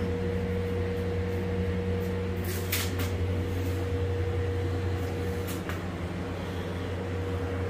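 Window air conditioner cooling a walk-in cooler, running with a steady low hum and a faint steady tone over it. A couple of light clicks come about three seconds in and again a little past the middle.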